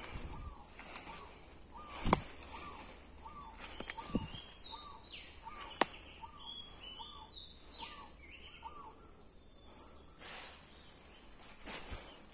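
Tropical woodland ambience. A steady high insect drone runs throughout, and a bird repeats a short arched note about twice a second, stopping about two-thirds of the way through. Other bird calls glide higher up in the middle, and a few sharp snaps sound from walking on dry leaf litter.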